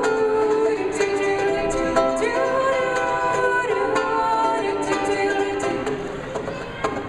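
Acoustic music: wordless singing on long held notes that glide between pitches, with ukulele accompaniment.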